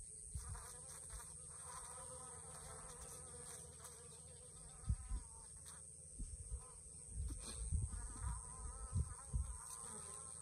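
Honeybees buzzing as they forage in and around a cactus flower, their hum wavering up and down in pitch. Several low thumps on the microphone come in the second half.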